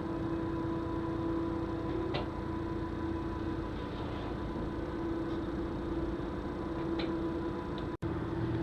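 The twin diesel engines of a 72-foot Nordhavn trawler running steadily at cruising speed, about 1100 rpm, heard as a steady hum with a few faint ticks. The sound drops out for an instant near the end.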